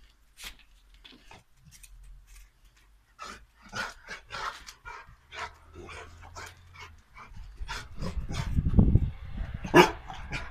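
Dog barking in short, scattered barks, the loudest near the end, with a low rumble shortly before it.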